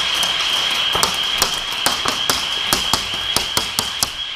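Airsoft gunfire: about a dozen sharp cracks of shots and BB hits at irregular intervals, closest together in the second half, over a steady high hiss.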